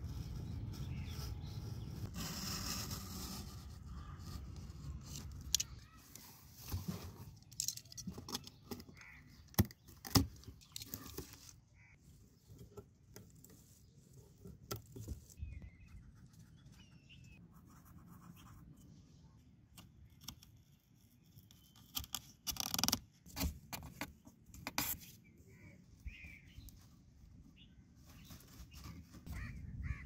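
Hands working cardboard: marker strokes scratching across the card, with scattered taps, scrapes and rustles as the box and sheet are handled. A low steady rumble fills the first few seconds, and a few faint bird calls come through in the background.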